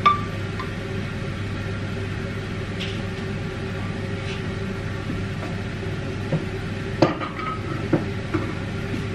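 Kitchen cookware clatter: a ringing clink as a utensil knocks against a frying pan at the start, then a few sharp knocks and clatters of the pan and utensils at the stove about seven to eight seconds in, over a steady low hum.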